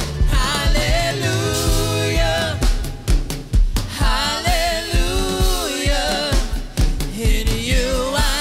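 Worship song with sung voices over a drum kit and bass, keeping a steady beat.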